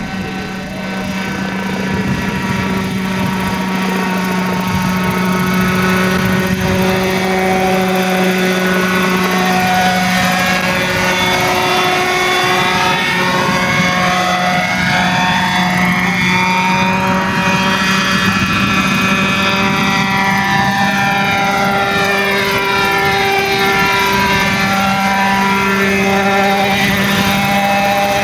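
Zenoah 26 two-stroke petrol engine and rotor of a 1:4 scale radio-controlled Bell 47G model helicopter in flight: a steady, loud buzzing drone. It grows louder over the first couple of seconds, then holds steady, with a sweeping shimmer in its tone through the middle as the helicopter moves about.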